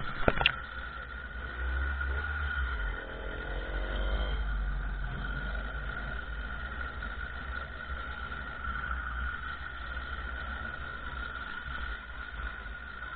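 Small 50cc motorcycle engine running at high revs while riding, with wind rumbling on the microphone. The engine note rises for a moment about three to four seconds in, then holds steady.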